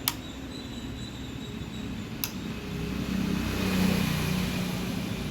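Two sharp clicks about two seconds apart over a steady low mechanical hum, which grows a little louder in the second half.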